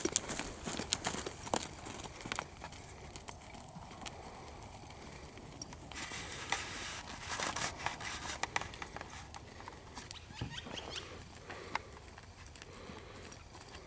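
Hoofbeats of an American Quarter Horse mare on a dirt arena floor, with sharp clicks most frequent in the first few seconds and scattered after. About halfway through there are a couple of seconds of louder rushing noise.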